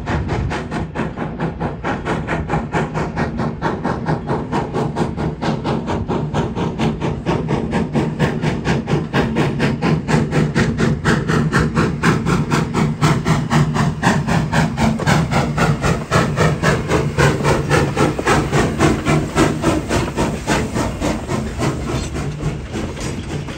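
Steam locomotive working past with a train of cars: rapid, steady rhythmic chuffing that grows louder as it nears and passes, then eases near the end as the cars roll by.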